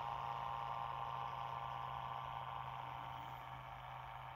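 Homemade 3D-printed magnet-rotor pulse motor spinning steadily, its coil pulsed by a Hall-effect circuit: an even hum of several steady tones, fading slightly toward the end.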